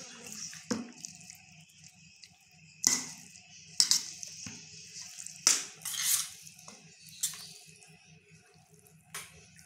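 Raw chicken pieces being mixed by hand in a wet spice marinade in a steel bowl: irregular wet squishes and slaps, a second or so apart.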